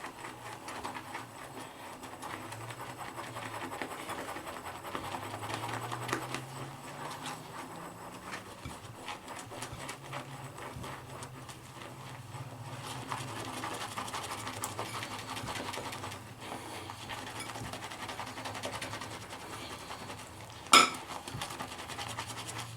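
Shaving brush working soap into lather in a ceramic bowl: a steady, fast, continuous scratching and swishing of bristles against the bowl. One sharp knock comes near the end.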